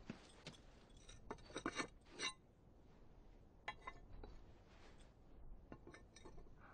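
Faint clinks and scrapes of boots and gear moving over slate roof tiles. A cluster of clinks comes about one and a half to two seconds in, with scattered single ticks later.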